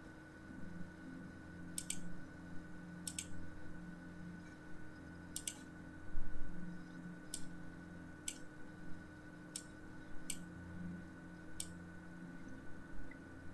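About eight sharp computer mouse clicks at irregular intervals, over a steady low hum.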